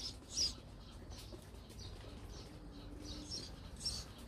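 Short, high chirps of a Eurasian tree sparrow hidden in the grass: a couple near the start and another couple near the end.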